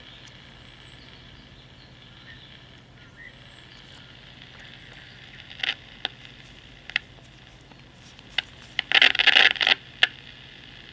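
Loudspeaker of a 1952 Philco 52-942 six-tube AM radio tuned between stations: a low steady hum and faint hiss, with little noise between stations, which the repairer takes as part of its poor sensitivity. In the second half come several sharp crackles of static and, near the end, a dense burst of crackling lasting about a second.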